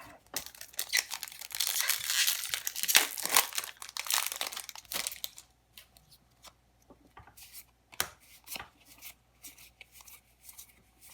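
Crinkly foil booster-pack wrapper being torn and crumpled for about five seconds, then a few light clicks and snaps of trading cards being handled.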